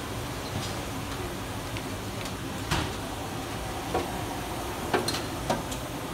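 Steady whir of running workshop machinery, with a few separate sharp clicks and knocks, the loudest about three and five seconds in.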